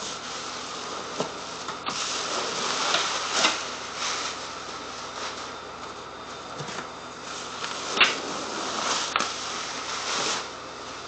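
Unpacking noises: packing material and cardboard rustling, with a few sharp knocks and clicks as parts are handled, over a steady background hiss.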